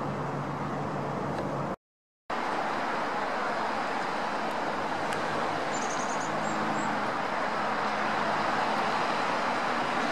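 Steady broad roar of a distant jet airliner high overhead, growing slowly louder as it approaches. A low hum from a helicopter comes first and cuts out about two seconds in.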